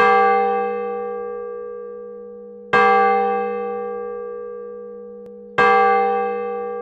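Intro music: a deep bell-like tone struck three times, about three seconds apart, each ringing and fading slowly over a low steady hum.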